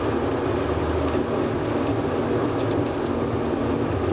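Steady vehicle road noise: tyres and engine running at an even, constant level.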